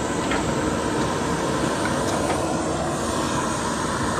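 Canister gas camp stove burning steadily at full flame, with a few faint taps as a pot is set on the burner.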